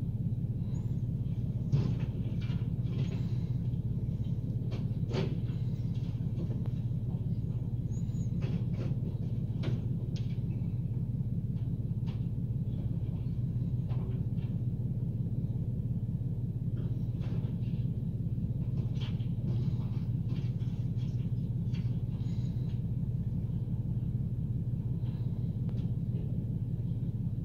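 Mercedes-Benz garbage truck with a Faun Rotopress body idling steadily with a low hum. Scattered knocks and clatter come from bins and refuse being handled at the rear loader. A sharp knock about two seconds in is the loudest.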